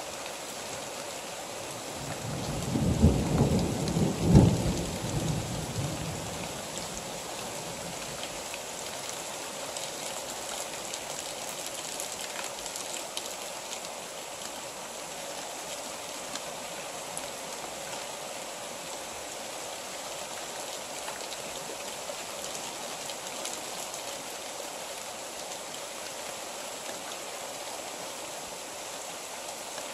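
Steady rain falling. A thunderclap comes about three seconds in, with two sharp peaks a second and a half apart, then rumbles away over the next few seconds.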